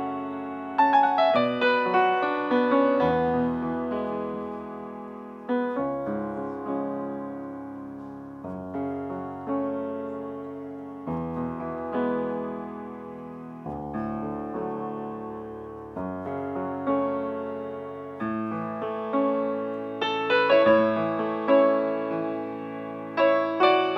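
Grand piano played solo: chords struck every second or two, each ringing and dying away, growing louder near the end.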